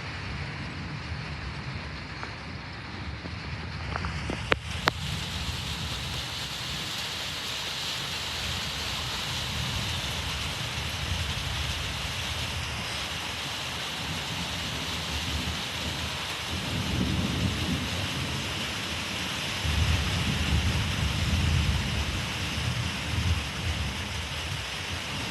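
Rain setting in about four seconds in, after two sharp clicks, then a steady hiss of rain. Low thunder rumbles roll in twice in the second half.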